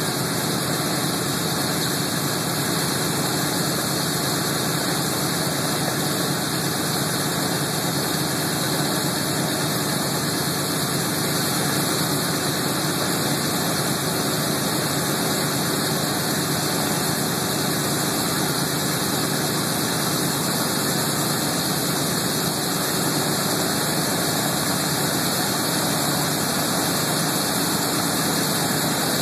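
Boeing B-17 Flying Fortress's Wright Cyclone radial engines running steadily at idle.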